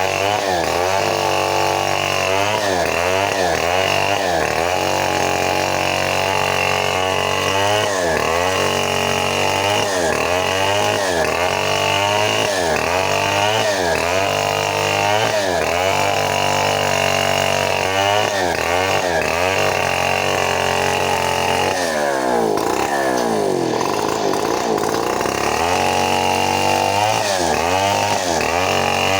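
Stihl 070 two-stroke chainsaw ripping lengthwise through very old teak, the engine note repeatedly dipping under load and picking back up about once every second or so. About three-quarters of the way through, it bogs down longer and deeper before recovering.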